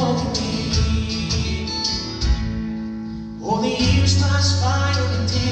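Live Celtic folk band playing an instrumental break between verses, with acoustic guitar strumming over steady low bass notes. The music thins out briefly around the middle, and the full band comes back in about three and a half seconds in.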